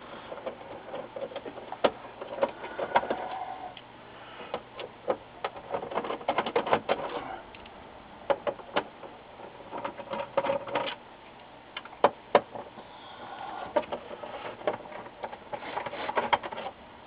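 Hand Phillips screwdriver backing the screws out of a Samsung SyncMaster 214T LCD monitor's stand mount: irregular clicks and stretches of rasping as the driver tip turns in the screw heads and the screws loosen.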